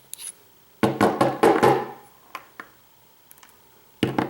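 Sharp knocks and clicks of small metal lock parts clattering against a hard surface as a pin-tumbler lock is taken apart, with a dense flurry of strikes about a second in.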